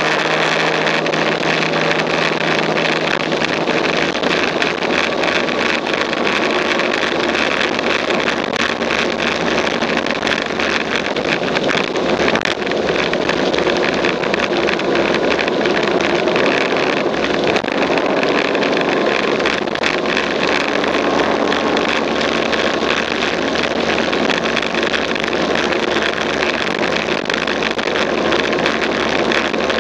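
Motorcycle riding at a steady speed: engine running under a steady rush of wind across the microphone.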